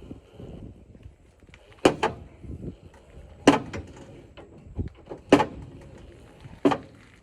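Spare-tire winch of a 2015 Chevy Silverado being cranked with the jack handle rods through the rear bumper: a sharp metallic click about every one and a half to two seconds, four in all, with fainter ticks between, as the cable pays out and the spare is lowered.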